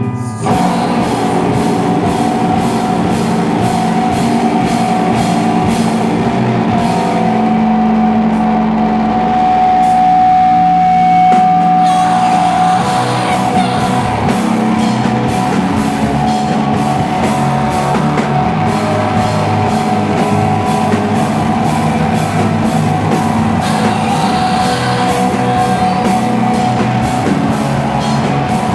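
Live slowcore/noise rock band playing loudly, with drum kit and guitars; the full band comes in at the very start, after a thinner guitar part.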